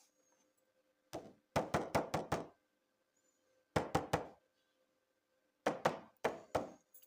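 Sharp knocks of hard objects, about a dozen in short quick groups of three to five, with pauses of a second or more between groups.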